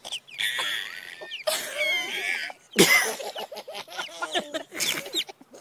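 A baby laughing in several breathy bursts of giggling.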